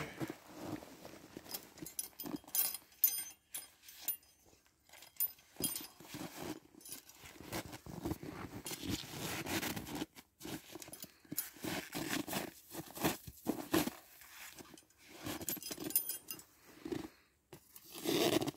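Light metallic jingling and clinking from a steel coyote power ram and snare cable being handled, with irregular boot shuffles in snow.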